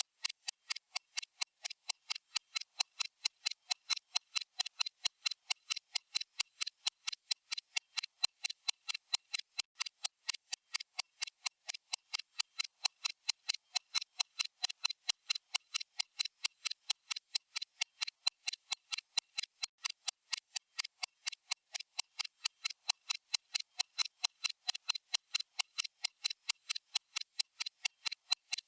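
Stopwatch ticking sound effect: rapid, evenly spaced, crisp ticks at a constant rate and level.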